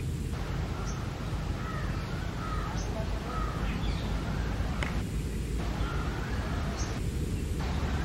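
Birds calling over a steady background rumble and hiss, with short calls coming every second or so and a few brief higher notes.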